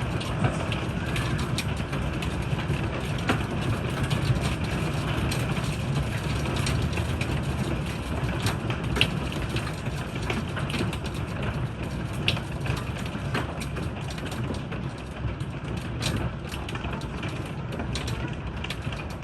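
Hail falling in heavy rain: a steady rush of rain broken by many sharp, irregular clicks of hailstones striking.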